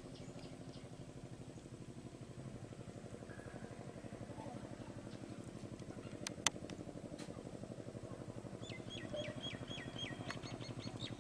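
A steady low motor hum with a fast, even pulse runs throughout. There is one sharp click a little past halfway, and near the end a bird calls a quick run of short falling chirps.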